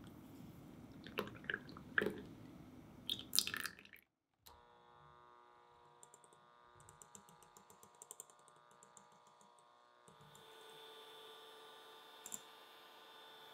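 Cold cream is poured into a glass mixing bowl, with a few sharp clicks. Then an electric hand mixer whirs steadily as its beaters whip the cream in the glass bowl, with light rapid ticking. The motor gets a little louder about ten seconds in.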